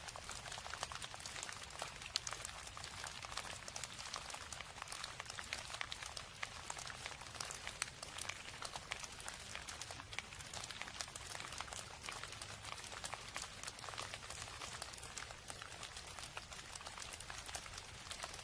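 Steady rain, heard as a dense, even crackle of many small drop impacts over a soft hiss.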